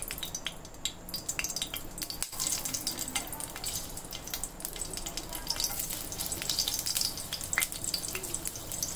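Slit green chillies frying in hot refined oil: a steady sizzle with scattered sharp crackles and pops.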